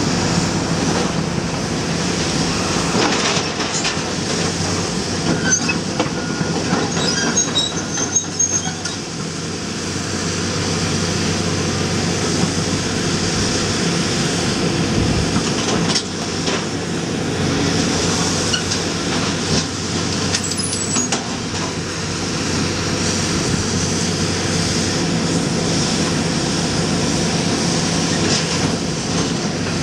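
Komatsu PC400 excavator's diesel engine running steadily under hydraulic load while its demolition shear jaws work steel beams, with high metal-on-metal squeals and clanks coming and going over the engine.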